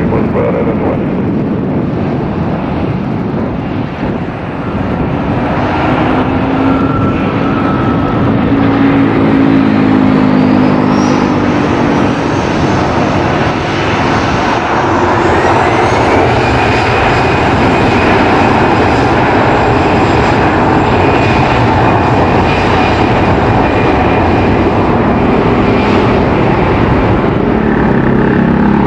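Jet engines of an Airbus A320 (CFM56 turbofans) running loudly. About halfway through, the turbine whine rises in pitch as the engines spool up, then holds steady.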